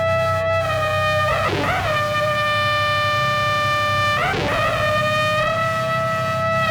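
Modular synthesizer playing sustained pitched tones over a low steady drone, with wavering slides into a new pitch about a second and a half in and again about four seconds in.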